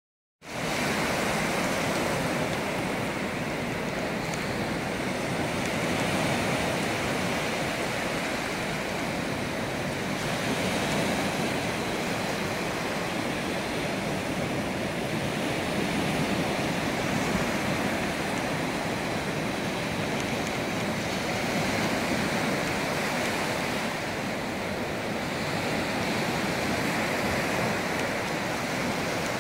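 Small surf waves washing onto a sandy beach: a steady rush of water that swells gently every few seconds, starting abruptly about half a second in.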